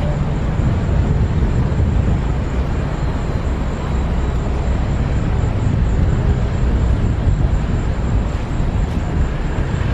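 A car driving along a city street: steady low rumble of road and engine noise, with no sudden events.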